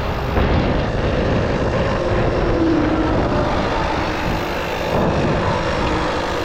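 Highway traffic passing steadily close by, a continuous rushing noise with a strong low rumble.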